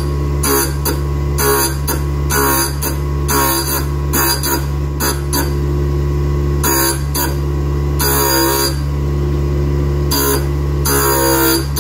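D-bit grinder's motor running with a steady hum while a round tool-steel thread-cutting tool is swept across the edge of the wheel, giving short, pitched grinding bursts at irregular intervals of about a second, with brief pauses. This is heavy stock removal on the tool's trailing side.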